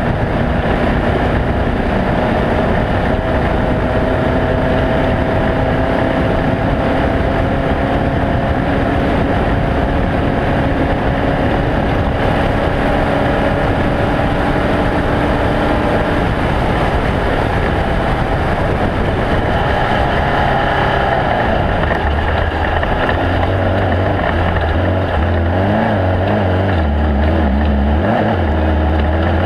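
Off-road desert race vehicle's engine running hard and continuously, with wind noise. Its pitch climbs slowly for about the first sixteen seconds, then drops and rises in steps as the throttle changes.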